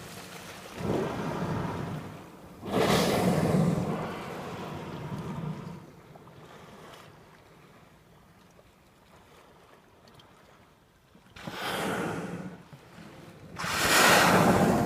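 Humpback whales blowing as they surface: four loud exhalations, each lasting a second or two. There is a quieter stretch of several seconds between the second and the third.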